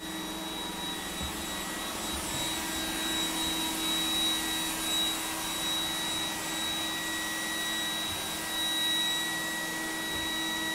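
An iRobot Roomba robot vacuum running steadily: an even whir with a thin high-pitched whine.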